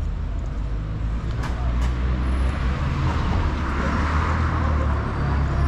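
City street traffic: a motor vehicle's low engine rumble and tyre hiss, the hiss building through the middle as it passes close.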